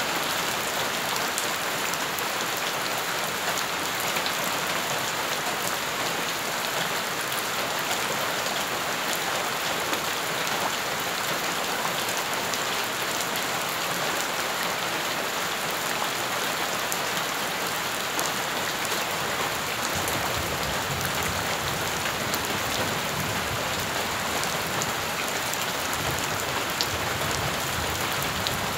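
Steady rain splashing onto puddled ground, a dense patter of many small drops. A low rumble joins in underneath about two-thirds of the way through.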